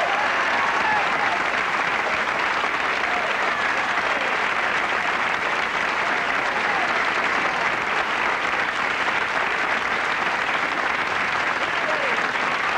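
Audience applauding steadily, with a few short cries rising above the clapping.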